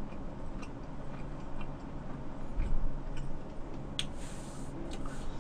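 A person eating sushi close to the microphone: quiet chewing with scattered small clicks, a low thump about two and a half seconds in and a sharp click about four seconds in.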